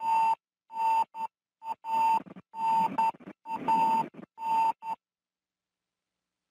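Electronic beeping tone with a hiss under it, keyed on and off in about a dozen uneven bursts, some short and some longer, like a radio signal. It stops abruptly about five seconds in.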